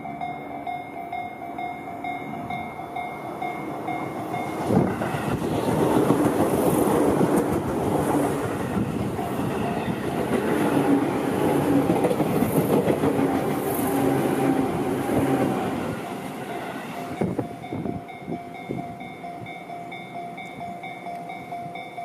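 A level crossing warning bell rings in a steady repeating ding. About five seconds in, an electric Tobu commuter train passes close by for some twelve seconds, its wheels clattering on the rails and drowning out the bell. The bell is heard again once the train has gone by.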